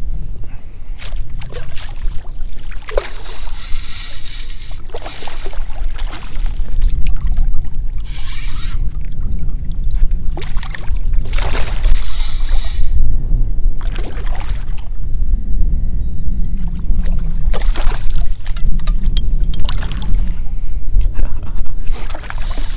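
A hooked redfish thrashing at the surface beside a kayak, with irregular splashes over a steady rumble of wind on the microphone.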